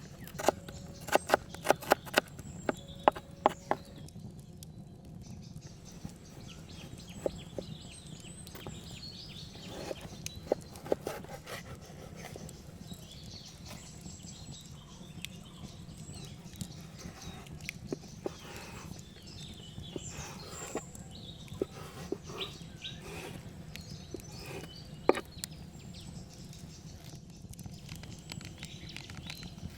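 Outdoor ambience with a steady low hum and faint bird chirps, broken by sharp clicks and knocks that come thick and fast in the first few seconds and only now and then after that.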